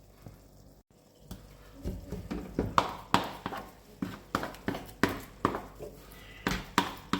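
A spoon knocking repeatedly in a pot of stiff pounded yam fufu as the dough is turned and worked, about three knocks a second, starting about two seconds in.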